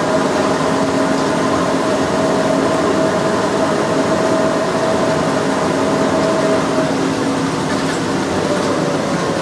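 Driverless rubber-tyred airport shuttle train running along its concrete guideway, heard from inside the cabin: a steady rolling rumble with a motor whine that stops about seven seconds in, then a fainter tone falling slightly in pitch near the end.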